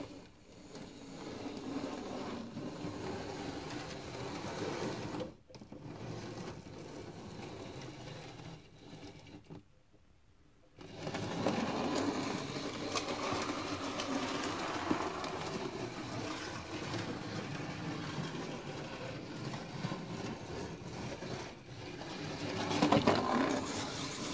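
Hornby OO gauge LMS Fowler 2-6-4T model tank locomotive running on its track, its small electric motor and wheels making a steady whirr. It stops briefly about five seconds in, runs more quietly, stops again about ten seconds in, then runs on louder.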